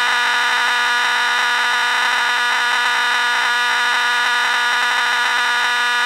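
CPG 4050D fire alarm horn sounding continuously on filtered power: a steady, loud, slightly raspy horn tone rich in overtones, with no pulsing.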